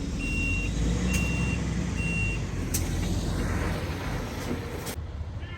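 Truck's reversing alarm beeping about once a second, three beeps that stop about two and a half seconds in, over a truck engine running steadily. There is one sharp click about three seconds in, and the engine sound cuts off abruptly near the end.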